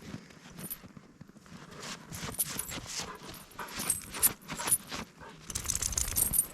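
Footsteps crunching in snow: a run of short, irregular crunches that thickens near the end.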